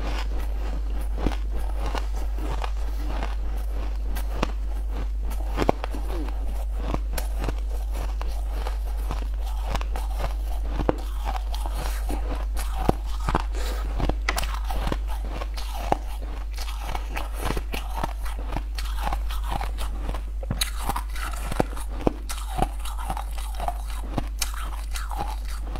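Close-miked crunching and chewing of ice, many sharp crunches one after another, over a steady low hum.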